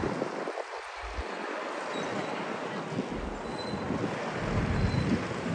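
Hino heavy truck's diesel engine running and its tyres rolling as it drives down a car ferry's vehicle ramp, getting louder and deeper near the end, with some wind on the microphone.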